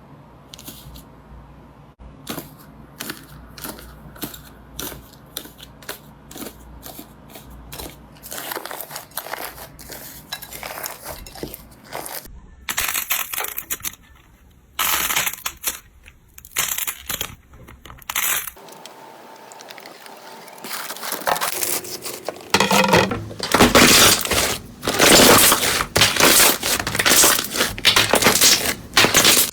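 Crunchy slime being pressed and squeezed by hand, crackling and popping: sparse sharp clicks at first, then denser crackling and several separate loud bursts, with the loudest, most continuous crackling near the end.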